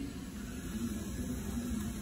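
Steady low background hum with no distinct knocks or handling sounds.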